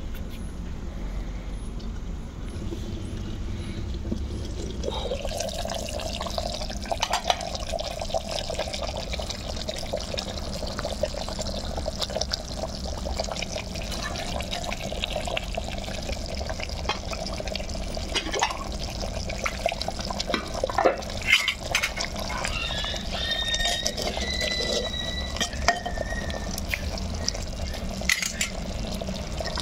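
Chicken curry boiling in an open clay pot over a wood fire, a steady bubbling with many small pops and crackles. A brief whistle-like tone comes in about three quarters of the way through.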